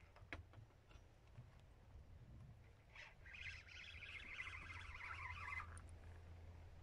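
Fishing reel being wound, a dense whirring buzz that starts about three seconds in and stops sharply nearly three seconds later, after a single sharp click near the start.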